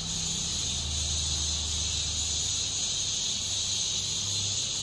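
Steady, high-pitched insect chorus with a faint low hum underneath; it cuts off suddenly at the end.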